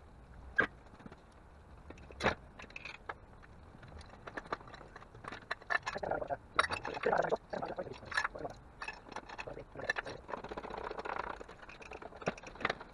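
Scattered knocks and clinks of metal hand tools and parts being handled, with a busier stretch of clattering about halfway through.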